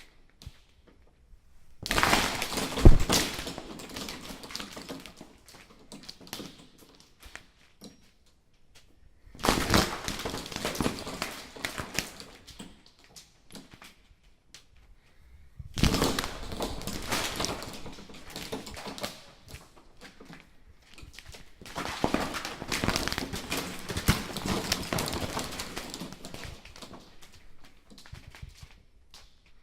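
Plastic strip curtain door, its strips pushed apart and slapping and clattering against each other as they swing back, four times over. Each pass starts with a sudden slap and trails off in a rustle over a few seconds; the last one lasts longest.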